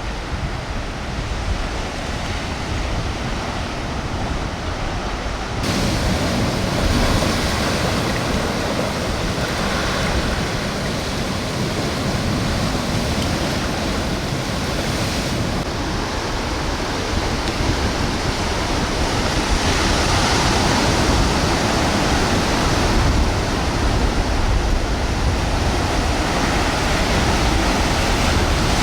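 Sea surf washing onto a beach, a steady rushing noise that swells and eases, with wind rumbling on the microphone. It grows suddenly louder about six seconds in.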